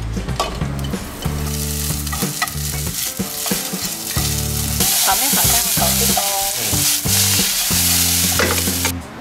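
Japanese-style fried noodles and vegetables sizzling as they are stir-fried with chopsticks in a nonstick pan over a gas flame. The sizzle grows louder and brighter about five seconds in.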